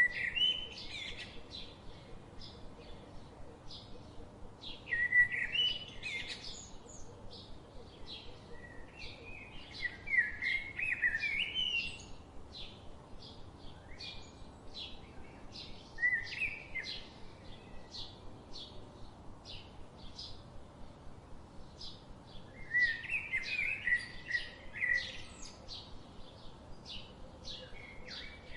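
Small garden birds chirping: a steady run of short, high chirps, two or three a second, broken every few seconds by louder twittering phrases lasting a second or two.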